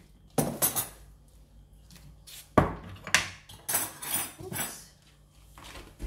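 Kitchenware being handled and set down on a counter and wooden chopping board: a handful of separate knocks and clinks, the sharpest about two and a half seconds in.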